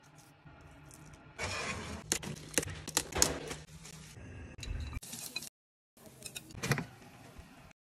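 Kitchen prep handling sounds: utensils clicking and clinking against the baking tray and dishes while food is handled, with a denser stretch of rustling and clicks in the first half. The sound cuts off abruptly twice between short clips.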